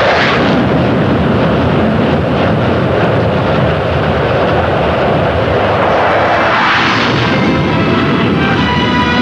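A-4 Skyhawk jet's engine running at full power for a carrier catapult launch: a continuous loud roar that swells about seven seconds in as the jet goes off the deck. Music comes in near the end.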